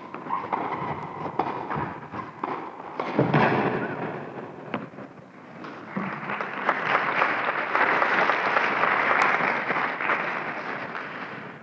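A few sharp tennis-ball strikes, about a second and a half apart, during a rally. Then, from about six seconds in, an audience applauding for several seconds.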